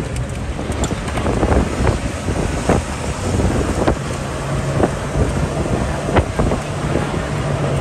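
A jeep on the move: the engine runs steadily under wind noise on the microphone, with frequent short rattles and knocks throughout.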